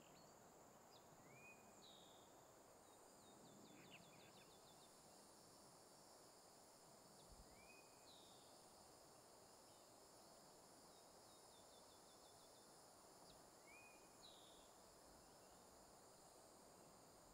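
Faint forest ambience: a steady high drone of insects, with a songbird singing three times about six seconds apart, each song a short rising whistle, a higher note and a quick trill.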